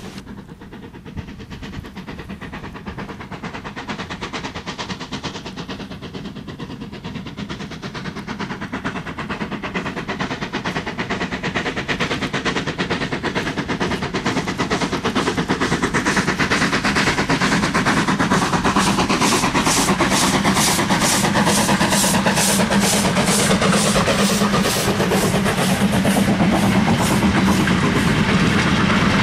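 Steam locomotive hauling a goods train, approaching and getting steadily louder, its exhaust beats coming as a regular rhythm as it draws near. Near the end the goods wagons rattle past over the rail joints.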